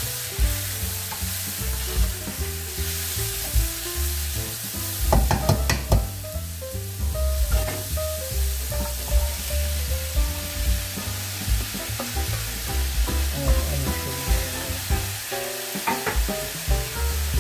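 Venison and onions sizzling hard in a hot stainless steel pot, stirred with a metal spatula that scrapes and knocks against the pot a few times, about five seconds in and again near the end. Background music plays underneath.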